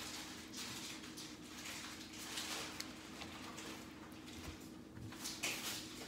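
Faint, soft handling sounds as raw trout fillets and skin are moved about by hand on a wooden cutting board, a few quiet rustles over a steady hum.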